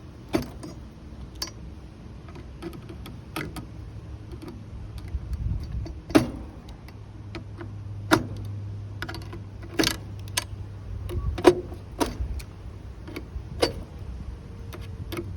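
Irregular clicks and knocks of hands working on an air conditioner unit, handling its panel and parts, with a steady low hum coming in about seven seconds in.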